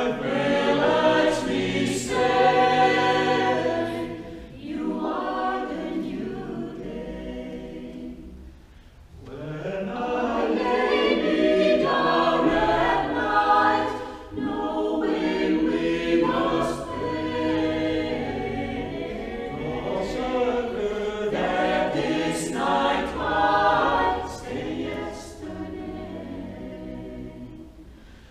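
Mixed vocal group of men and women singing a ballad a cappella in close harmony, in phrases with short breaks between them.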